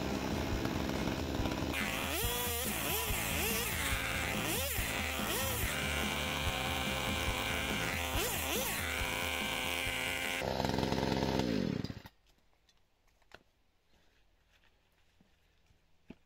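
Two-stroke petrol chainsaw running and cutting into an oak block, its engine revving up and down. About ten seconds in the engine note falls away and it stops, leaving only a few faint knocks of wood being handled.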